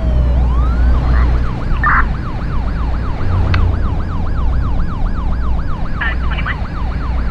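Emergency-vehicle siren that sweeps up and then switches to a fast yelp, rising and falling about four times a second. Under it runs a low traffic rumble.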